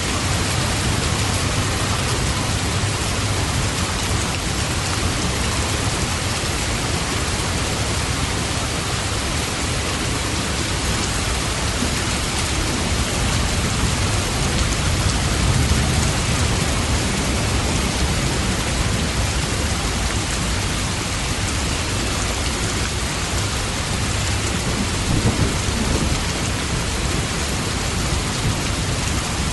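Steady, heavy rain with low rumbles of distant thunder swelling about halfway through and again near the end.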